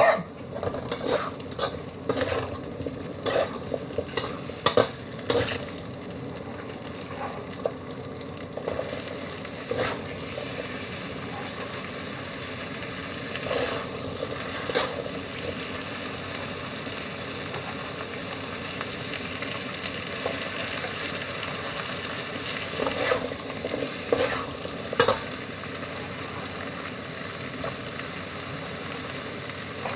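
Metal spatula scraping and knocking against a wok as vegetables in curry paste are stirred and fry with a steady sizzle. The scrapes come in clusters: a quick run at the start, and again about a third of the way in and near the three-quarter mark.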